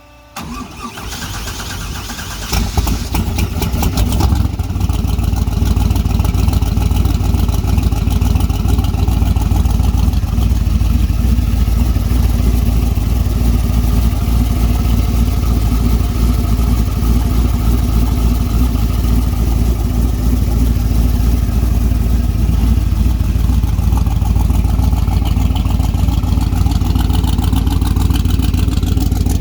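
1969 Camaro's V8 race engine cranking on the starter, catching about two seconds in and revving briefly, then running loud and steady. This is its first start after the head gaskets were replaced.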